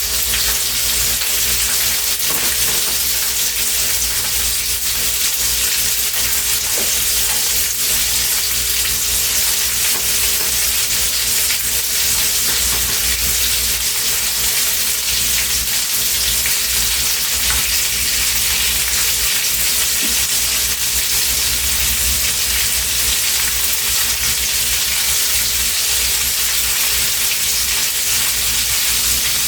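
Sausage, onion, bell pepper and sweet potatoes frying in a pan: a steady sizzle, with a constant low rumble and faint hum beneath it.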